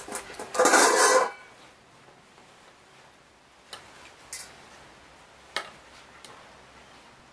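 A dog gives one short, loud bark about a second in during rough play with puppies, followed by a few faint clicks and knocks.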